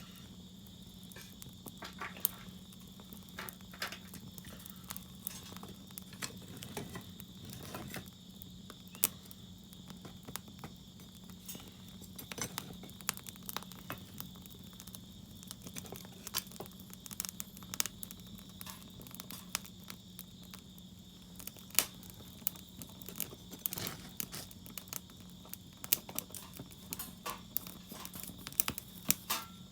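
Firewood burning in a fire pit, crackling with irregular sharp pops, a few of them loud.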